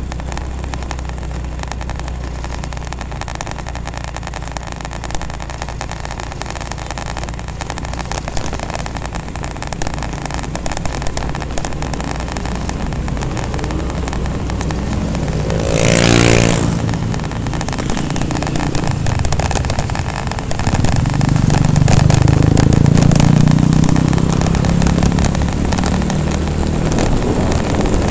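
Honda Revo F1 motorcycle's 110 cc single-cylinder engine running while riding along, heard with wind and road noise on the microphone. About halfway through there is a brief loud rush, and the low rumble grows stronger toward the end.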